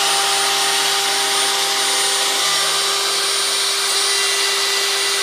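The router motor serving as a home-made CNC router's spindle runs steadily at speed while its cutter mills an aluminium block. It makes a continuous whine over dense cutting noise, and the low hum shifts slightly about two and a half seconds in.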